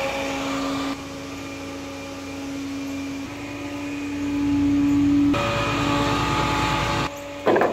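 A flatbed tow truck running with its hydraulic pump engaged for the bed: a steady hum at one constant pitch that grows louder around the middle.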